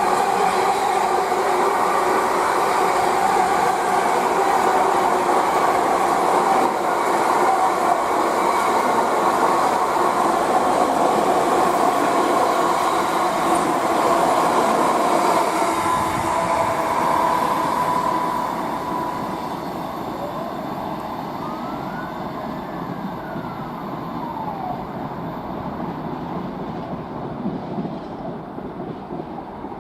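Freight train passing at speed, its wagons running steadily over the rails, then fading away about two-thirds of the way through. A faint tone rising and then falling in pitch follows near the end.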